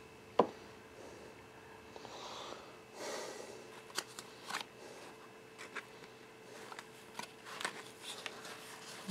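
Unboxing handling noise: a sharp knock about half a second in as the microphone body is set down on the table, then soft rustling and scattered small clicks as the paper instruction card and accessories are handled, over a faint steady hum.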